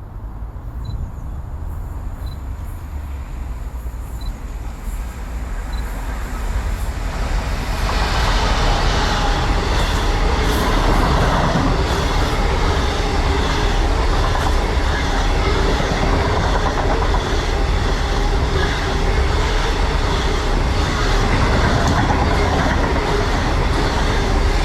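A train running past on the rails, its noise building over the first eight seconds or so and then staying loud and steady.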